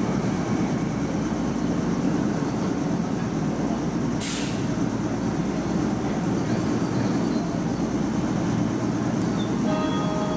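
JR 105 series electric train at the platform, a steady rumble with a short burst of air hiss about four seconds in.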